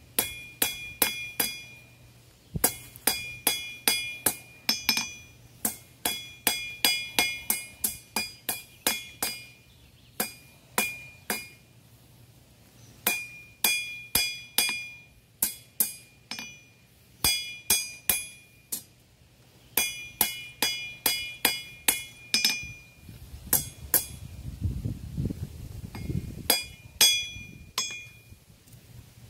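Blacksmith's hammer striking iron on an anvil while hand-forging a fireplace poker, in quick runs of ringing blows with short pauses between. Near the end a low rumble sounds for about two seconds.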